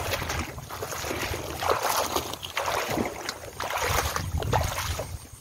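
Irregular rustling and scuffing in uneven bursts: a rain jacket and leaves brushing as a snake is hauled in with long metal snake tongs.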